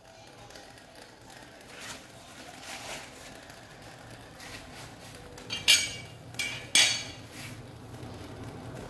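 Handling noises: a few short, sharp crackles and snaps between about five and a half and seven seconds in, over a faint steady background.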